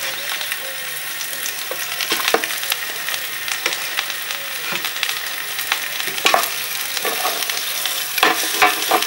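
Floured veal shank slices sizzling in hot olive oil in a cast-iron Dutch oven, a steady frying hiss with crackling spatters. A few sharper clicks and knocks stand out as more slices are laid in with metal tongs.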